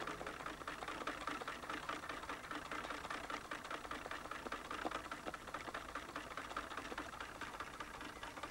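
Sewing machines running with a fast, even clatter of needle strokes.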